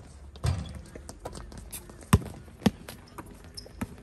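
Basketball bouncing on an outdoor hard court, with players' footsteps. A few irregular sharp bounces come through; the loudest two are about half a second apart near the middle.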